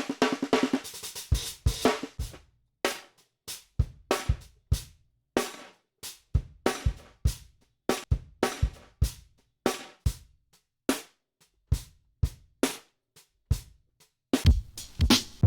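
Chopped drum-break slices being played back in a DAW: single kick, snare and cymbal hits cut off sharply, with short silent gaps between them in an uneven, stop-start pattern. A pitched sample snippet sounds under the hits in the first second or so.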